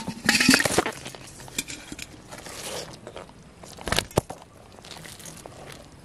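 A caught snakehead being handled on a wet, muddy bank: a loud rustling, scuffing burst at the start, quieter scraping after, and two sharp knocks about four seconds in.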